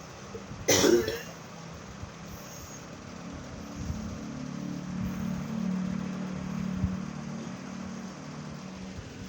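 A person coughs once, sharply, about a second in. A cough is the complaint this foot-nerve massage is meant to treat. A low drone then swells and fades over the next few seconds.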